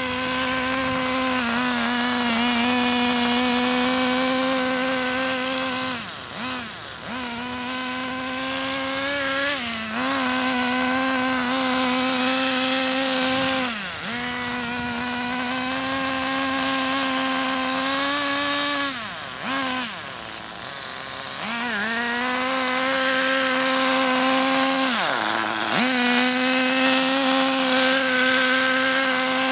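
Small nitro (glow-fuel) engine of a radio-controlled car running at high revs with a steady buzz, its pitch dropping briefly and climbing back several times as the throttle is lifted and reapplied.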